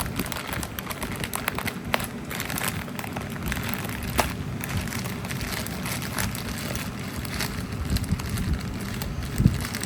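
Rustling and crackling of packaging being handled and opened, with a few sharp clicks and knocks.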